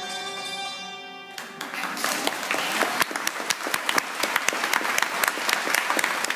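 The last notes of hammered dulcimers (Hackbrett) ring and fade away. Audience applause breaks out about a second and a half in and carries on.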